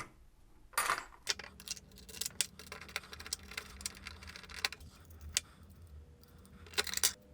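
Irregular light metallic clicks and taps of screws, a screwdriver and metal mounting brackets being fastened onto a CPU cooler back plate. The loudest click comes about a second in.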